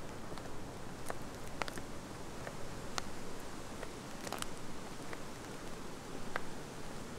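Footsteps on a dry bush track: scattered short, irregular clicks and crackles over a steady low hiss.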